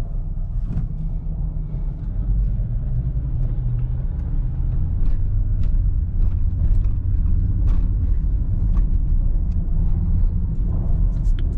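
Steady low rumble of road and engine noise inside a car's cabin while driving, with a few faint scattered ticks.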